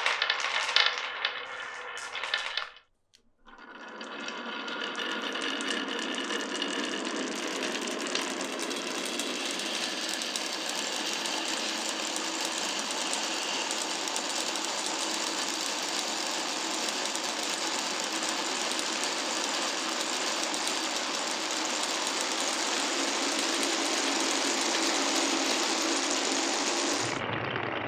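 Marbles clicking and clattering through a wooden marble run. After a brief break comes a long, steady rolling rattle of many marbles running along the track together.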